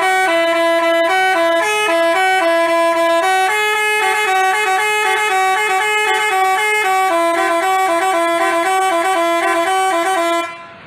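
Basuri telolet horn playing a quick tune of short stepping notes, switching back and forth between a couple of pitches, until it cuts off near the end.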